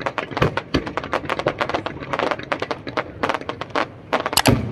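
Fireworks crackling: a dense, irregular run of sharp pops from crackling stars, with a couple of deeper booms from bursting shells near the end.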